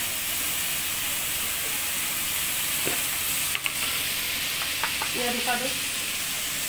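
Oil sizzling steadily in a kadhai as fish fries in masala on a gas stove, with a couple of light clicks a little past halfway.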